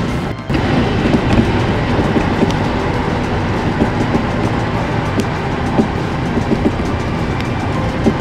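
Running noise of a Kintetsu electric train at speed, heard from inside the car: a steady rumble of wheels on rail with occasional clicks. The sound dips briefly about half a second in.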